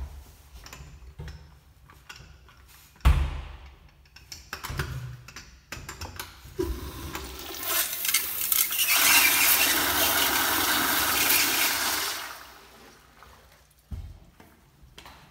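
Sloan wall-hung toilet flushing through its flushometer valve: a loud rush of water into the bowl for about five seconds that then tapers off. A thump comes about three seconds in.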